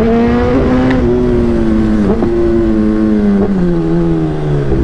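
Kawasaki ZX-10R inline-four engine running at steady revs under way, its pitch creeping up, dipping briefly twice, then falling away near the end as the bike eases off.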